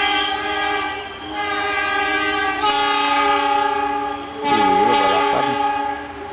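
Diesel locomotive's multi-tone air horn sounding in three long blasts, the later two the loudest.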